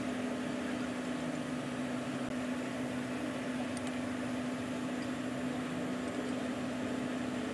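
A steady mechanical hum with one constant low tone over a hiss of noise, unchanging throughout.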